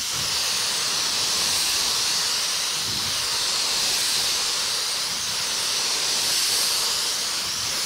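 Gravity-feed paint spray gun hissing steadily with compressed air as it sprays a second coat of primer onto a car body panel.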